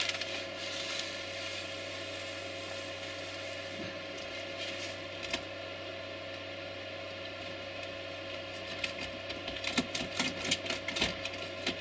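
A steady background hum, with a quick run of rattles and rustles in the last few seconds as coarse ballast is tipped from a plastic bag into a small ballast spreader.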